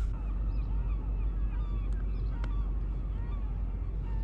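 A flock of birds giving many short, scattered calls over a steady low rumble, with two sharp clicks about two seconds in.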